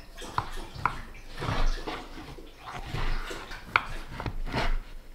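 A knife slicing through a glazed loaf cake, the blade sawing through the crumb and knocking down onto a wooden cutting board with several sharp taps. It stops abruptly near the end.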